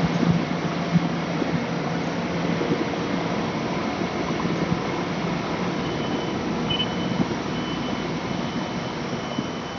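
A steady mechanical hum. From about six seconds in, a high beep starts repeating on and off, like a vehicle's reversing alarm.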